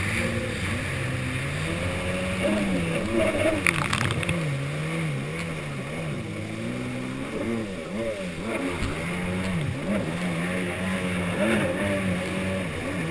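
Yamaha SuperJet stand-up jet ski's engine running under way, its pitch rising and falling again and again as the throttle is worked, over the rush of water spraying off the hull.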